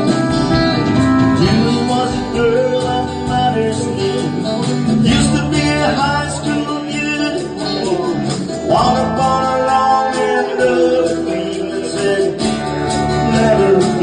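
Country band playing an instrumental intro: strummed and plucked guitars under a lead melody line that bends up and down between notes.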